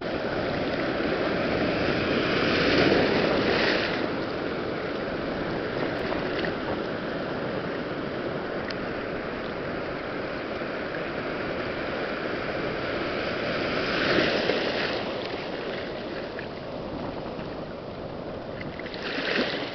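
Broken surf: whitewater rushing and washing steadily around the surfboard close to the microphone, with louder surges about three seconds in, around fourteen seconds, and just before the end.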